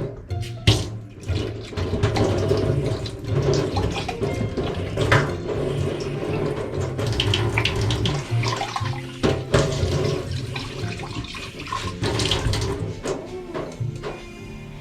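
Water running from a tap into a sink, with scattered knocks and clinks of things being handled.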